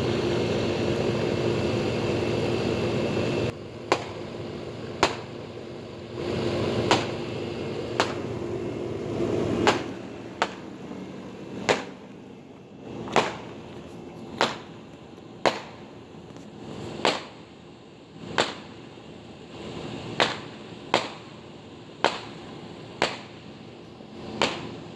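Fireworks going off: a string of sharp bangs, about one a second. For the first few seconds a steady hum sits under them and then cuts off suddenly.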